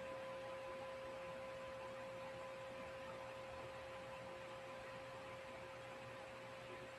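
A faint, steady pure ringing tone with a fainter overtone an octave above, fading very slowly over a low background hiss.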